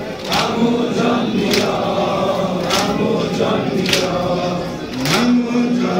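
A crowd of men chanting a Shia Muharram noha in unison on long held notes, with a sharp slap about every 1.2 seconds from the mourners' rhythmic chest-beating (sineh-zani).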